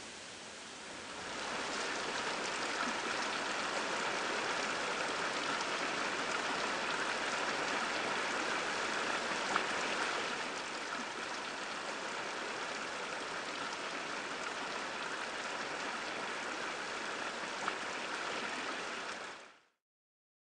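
Steady rushing noise, like running water or hiss. It grows louder about a second in and cuts off suddenly near the end.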